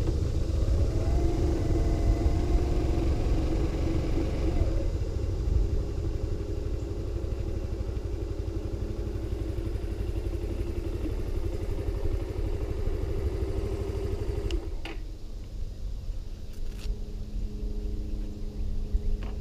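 Motorcycle engine at low speed with wind buffeting the microphone, the rush easing as the bike slows. About fifteen seconds in there is a sharp click, and another two seconds later, and the engine then idles steadily.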